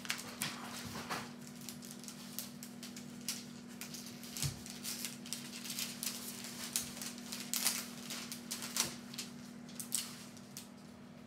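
Irregular light clicks and taps, like keys being pressed on a computer keyboard, over a steady low hum.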